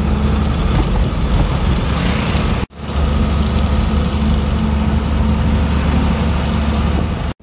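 Container lorry's engine and road noise heard from inside the cab while cruising on a highway: a loud, steady low hum. It cuts out for an instant about two and a half seconds in, then carries on.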